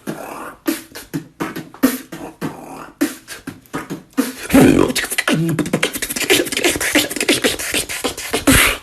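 Beatboxing: drum sounds made with the mouth, in a fast rhythm of sharp clicks and thumps. About four seconds in it turns denser and louder, then stops abruptly at the end.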